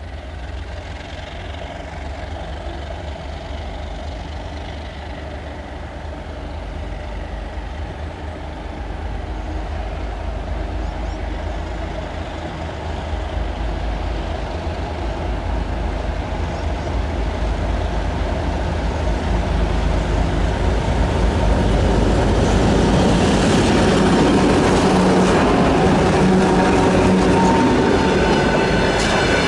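2M62U two-section diesel locomotive, with its two-stroke V12 diesel engines, running under load as it hauls a freight train closer. Its engine rumble grows steadily louder throughout.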